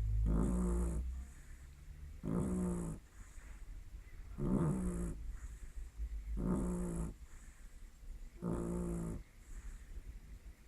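A dog snoring in its sleep: five snores, one about every two seconds, each lasting well under a second.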